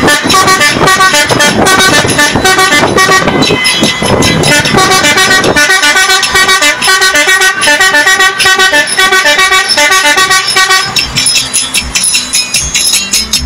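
A set of vehicle horns run by an electronic rhythm horn module, sounding a fast rhythmic pattern of short toots at several pitches. The horn pattern stops about eleven seconds in.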